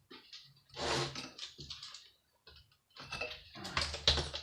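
Clicks, small knocks and a scrape as parts are worked loose from a scrap computer monitor being dismantled by hand: a brief scrape about a second in, then a run of clicks and knocks near the end.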